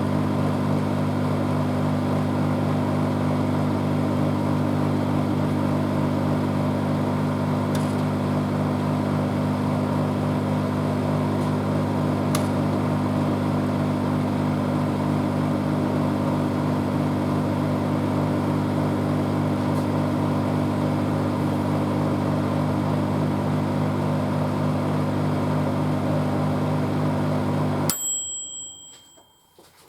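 A 700 W microwave oven running with a steady low hum. Near the end the hum cuts off suddenly and a short beep sounds, the signal that the heating cycle has finished.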